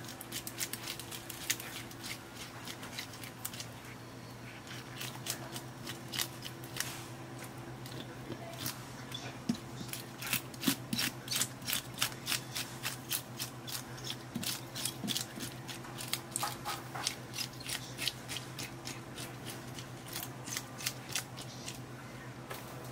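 Wooden fish scaler scraping the large scales off a parrotfish: rapid, rasping back-and-forth strokes in quick runs, with scales flicking off.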